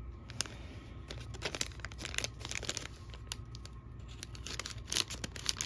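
Plastic packaging crinkling and tearing as a toy accessory bag is handled and pulled open by hand, in a run of irregular crackles.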